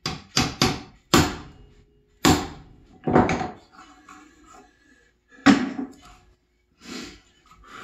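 Claw hammer striking a plastic-handled chisel, chopping waste out of a pine joint. Three quick blows open it, followed by single blows about a second apart, then two more knocks further on.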